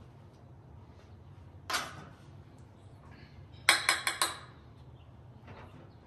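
A metal ladle clinking against a stainless steel bowl: four or five quick clinks about two-thirds of the way through, the loudest sound here. A single knock comes about a second and a half in.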